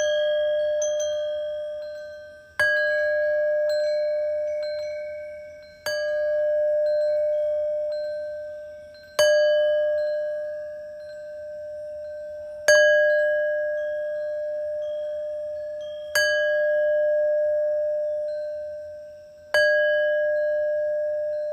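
A single bell-like tone struck about every three and a half seconds, six times, each stroke ringing with several overtones and fading slowly before the next, as in a meditation healing sound.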